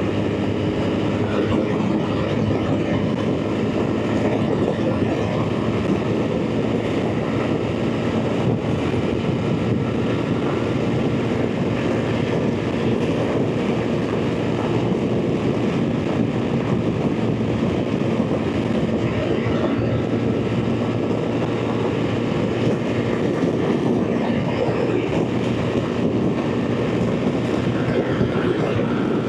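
BMW R 1300 GS Adventure's boxer-twin engine running at a steady motorway cruising speed, with wind and road noise. The engine note holds an even pitch throughout.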